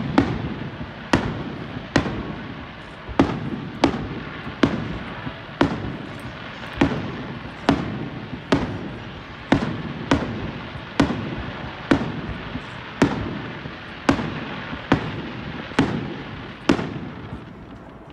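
Aerial firework shells bursting, one sharp bang about every second, each trailing off in a fading echo. The bangs stop about a second before the end.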